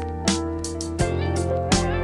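Instrumental background music: held melodic notes over a steady beat.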